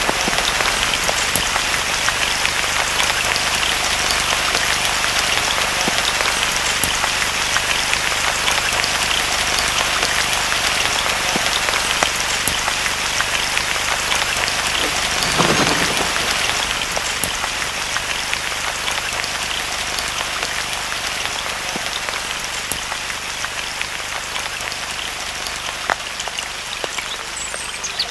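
Steady rain falling, a dense hiss made of many small drop ticks, with a faint low hum beneath it. It swells briefly about halfway through and grows a little softer over the second half.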